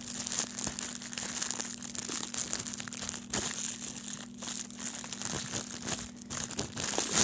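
Thin plastic bread bag crinkling and rustling as it is handled and opened, an uneven run of small crackles with a louder rustle at the very end, over a faint steady low hum.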